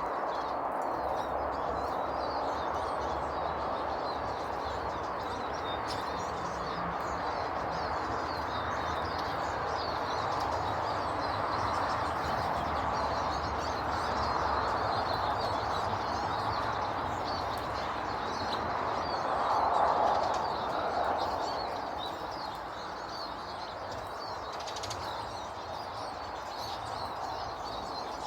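Many small birds chirping constantly over a steady rushing background noise, which swells briefly about two-thirds of the way in.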